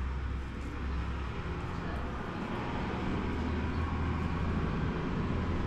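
A steady low rumble with a hiss above it, slowly growing a little louder.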